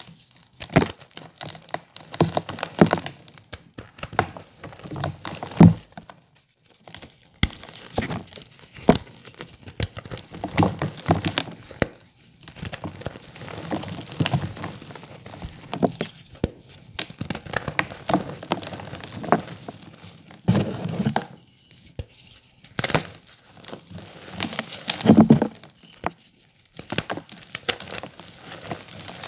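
Chunks of gym chalk being squeezed and crushed by hand, crunching and crumbling into powder in irregular bursts with sharp cracks and short pauses between squeezes.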